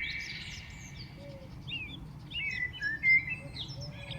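A flock of small birds chirping and calling together in short, overlapping notes, with one louder chirp about three seconds in.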